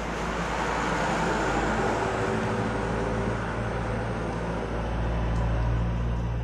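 Road traffic passing close by: vehicle engine and tyre noise swelling about a second in and again near the end, with a low engine hum strongest near the end.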